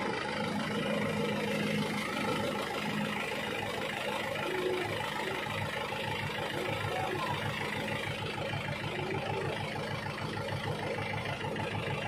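Mahindra 575 DI tractor's four-cylinder diesel engine idling steadily, with an even, fast low chug.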